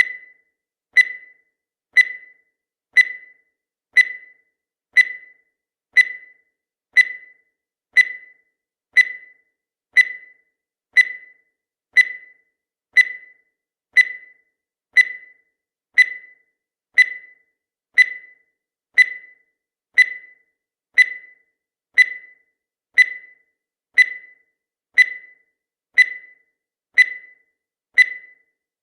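Countdown timer sound effect: a short, sharp high tick once every second, evenly spaced.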